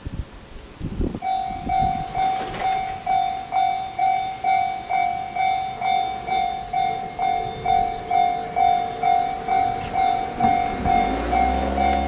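Japanese level-crossing warning alarm starting about a second in, an electronic bell ringing in even pulses about twice a second. Near the end a low hum with rising tones joins under it.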